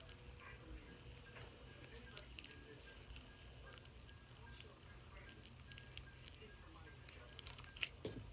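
Near silence: a faint steady low hum with scattered soft ticks and taps.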